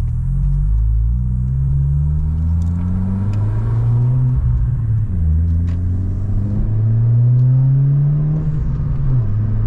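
Exhaust and engine of a 2022 Honda Civic Si's turbocharged 1.5-litre four-cylinder, with an aftermarket 27WON downpipe, front pipe and cat-back exhaust, heard from inside the cabin under acceleration. The pitch climbs steadily, drops at an upshift about five seconds in, climbs again, and drops at another shift near the end.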